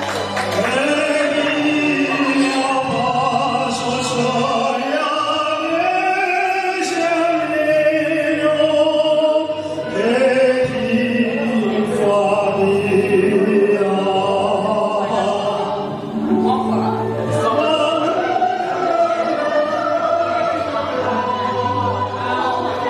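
Vocal music: voices singing long, wavering held notes over a steady low accompaniment.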